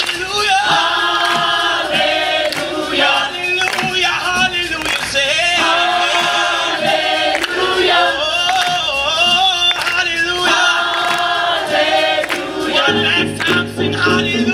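Gospel choir singing together in full voice.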